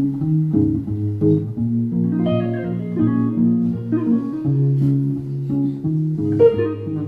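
Guitars playing a song's instrumental intro: plucked notes moving over a low bass line with a steady pulse.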